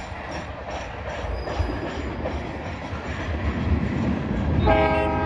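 Passing maintenance-of-way freight train rumbling by, its wheels clicking over the rail joints at a steady beat. Near the end a horn begins to sound: the start of the excavator operator's horn salute.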